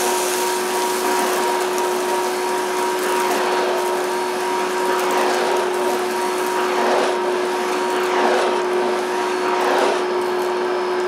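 1980s Hitachi Stowaway cylinder vacuum cleaner running steadily with a constant motor whine and rushing air, the air rush swelling every couple of seconds as the floor tool is pushed back and forth over dirty carpet. The owner thinks it already sounds to be losing suction and suspects a clogged filter.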